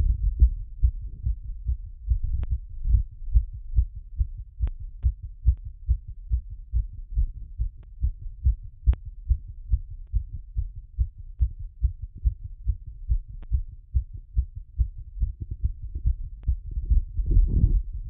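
Human heartbeat heard through a stethoscope after exercise: a quick, even run of low lub-dub beats, several a second, with a few faint clicks and a louder, noisier patch near the end.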